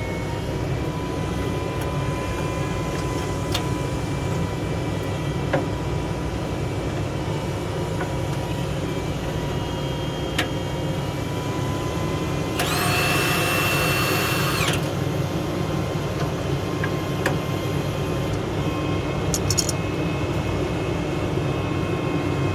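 Steady low engine rumble with a few faint clicks. About halfway through, an impact wrench runs in one burst of about two seconds, a steady-pitched whine.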